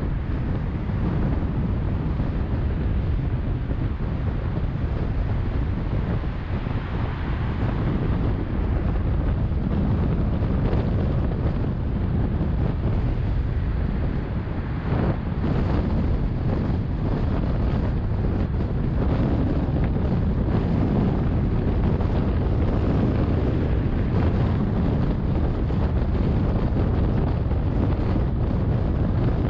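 Steady road and wind noise of a car travelling at speed: a low tyre rumble under rushing wind, with a few brief rises about halfway through.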